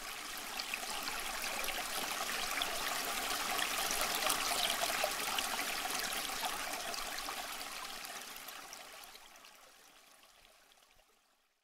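Rushing, splashing water sound effect for an animated logo reveal, swelling to a peak about halfway through and then fading out to nothing near the end.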